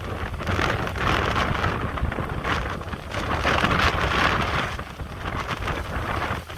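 Strong gusty wind rushing and buffeting the microphone, rising and falling in gusts with a constant low rumble.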